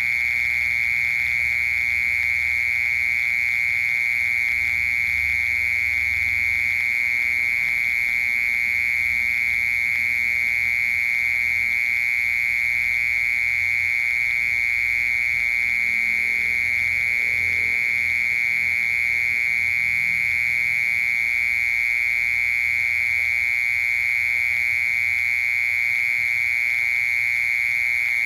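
Mole cricket singing: one steady, unbroken high-pitched trill.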